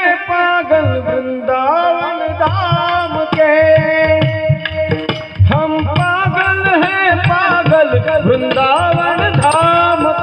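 Indian devotional song: a singer's voice carrying a gliding melody with long held notes, over a steady rhythm of tabla-style hand-drum strokes.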